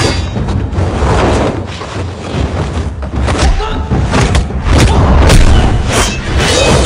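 Film fight soundtrack: a flurry of sharp punch and impact sound effects, coming faster in the second half, over a deep booming low undertone.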